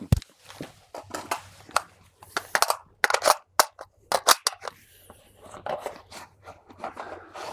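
A run of sharp clicks and clacks of an AR-15 rifle being handled as its magazine is swapped: one magazine is pulled from the magazine well and another is seated.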